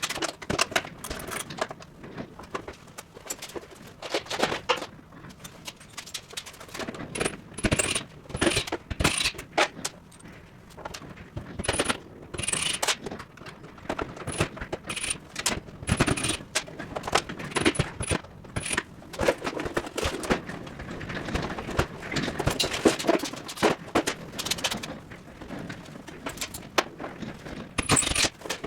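Irregular clinking, knocking and scraping of metal tools and parts being handled during dismantling work.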